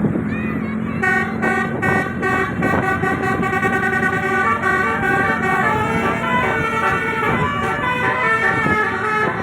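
Bus telolet horn, a bank of 18 roof-mounted air trumpets, playing a fast melody of sustained chords with the notes changing every fraction of a second. The chords come in about a second in.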